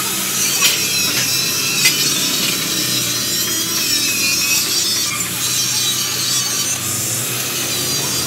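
Handheld electric angle grinder cutting through a thin steel sheet with an abrasive cut-off disc: a loud, steady, harsh grinding screech.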